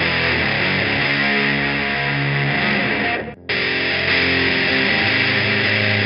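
Heavily distorted electric guitar playing a crunchy chord riff through a drive pedal. The riff stops dead about halfway through and comes straight back in.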